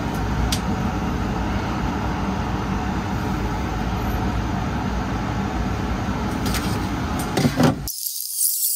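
TV static sound effect: a steady rush of white noise that cuts off abruptly near the end, leaving only a thin high hiss with faint clicks.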